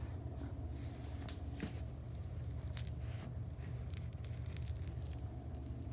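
Scratchy rustling and light clicks of a cat's claws catching on a plush fabric toy and carpet, thicker in the second half, over a steady low hum.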